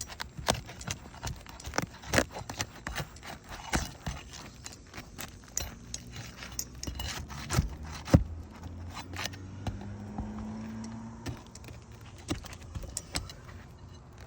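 Hand tool prying roofing nails out of asphalt shingles: irregular clicks, taps and scrapes, with one sharp knock about eight seconds in.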